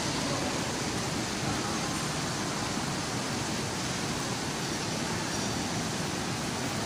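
Steady, even rushing noise of an indoor shopping mall's ambience, with no distinct events.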